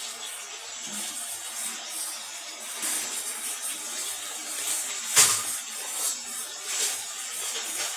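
Prawns and tomatoes frying in oil in an aluminium kadai, a steady sizzle, with a sharp knock about five seconds in.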